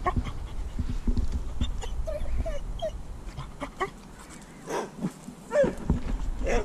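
Labrador puppy whimpering: a few short high whines about two seconds in, then a couple of longer whines near the end.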